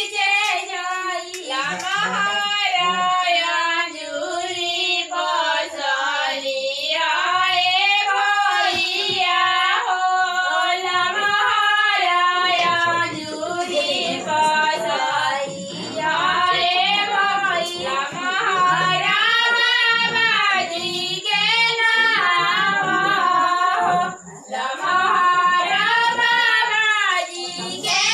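High-pitched voices singing a song with long, wavering held notes, pausing briefly near the end.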